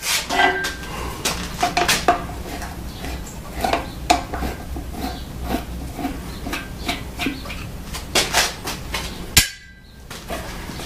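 Irregular metallic clinks and knocks of tools and steel parts being handled, with a brief sudden quiet near the end.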